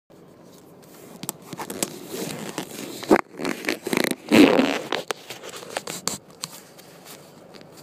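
Handling noise from a handheld camera being moved about: rustling and scraping with a string of sharp clicks, loudest just past the middle.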